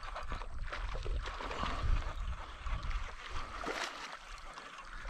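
Hooked largemouth bass thrashing and splashing at the water's surface as it is reeled in through the shallows, in short, irregular bursts of splashing.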